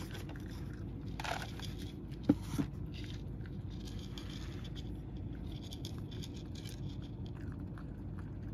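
A cat crunching dry kibble from a shallow dish, with small crisp crackles throughout and two sharper knocks a little over two seconds in.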